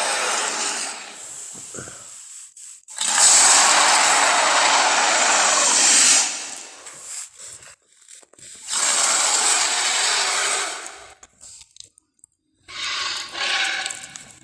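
Tyrannosaurus rex roar sound effects: a series of loud, harsh roars with short pauses between them. A roar fades out just after the start, two long roars of two to three seconds follow, and a shorter, more pitched growl comes near the end.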